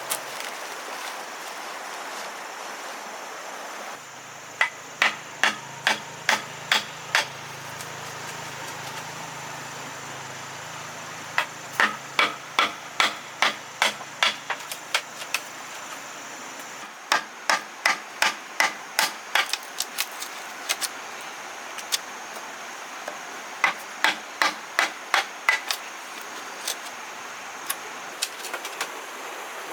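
Repeated hand-tool strikes on bamboo, in runs of five to ten blows at about two to three a second with pauses between the runs.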